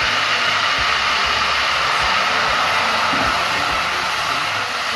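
Chopped onion sizzling in hot oil in a pot, a loud steady hiss, with a few soft knocks of a wooden spatula as it is stirred.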